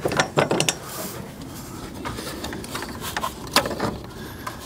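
Close-up handling noise: a few sharp clicks and knocks with some rubbing, clustered near the start, and one sharp knock about three and a half seconds in.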